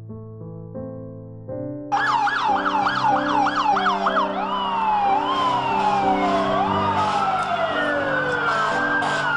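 Soft piano notes, then about two seconds in several emergency vehicle sirens start at once: a fast yelp first, then slower rising-and-falling wails from more than one siren overlapping, with the piano music continuing underneath.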